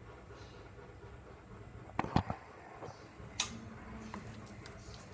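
Kitchen containers handled on a counter: a quick cluster of knocks about two seconds in, a sharper click about a second later and a few light ticks, over a steady low hum.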